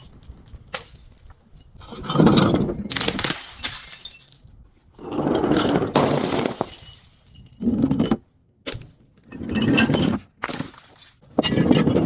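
Glass bottles breaking and crunching in five separate bursts about two seconds apart, each a rough crackle of shattering glass.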